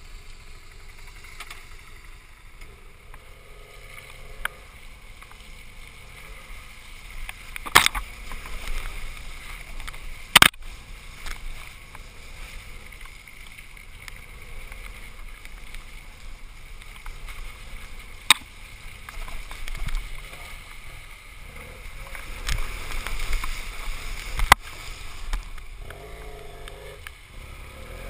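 BMW parallel-twin adventure motorcycle riding along a muddy, puddled trail, heard through a helmet-mounted camera: a steady, muffled run of engine and wind noise, broken by a few sharp knocks.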